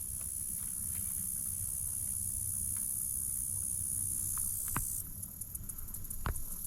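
Steady high-pitched hiss of an insect chorus, which drops suddenly about five seconds in, over a low rumble, with two sharp knocks near the end.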